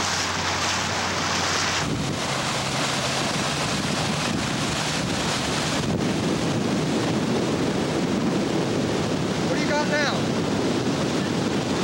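Wind on the microphone and water rushing past the hull of a 1940 Elco 57 motor yacht running under way, over the steady low drone of its twin Cummins V-903-M diesel engines.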